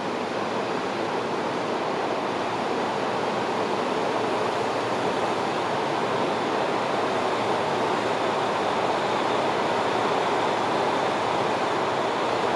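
JR Hokkaido KiHa 40 diesel railcar running at the platform: a steady, even rushing noise without a clear engine beat, growing slightly louder over the first few seconds.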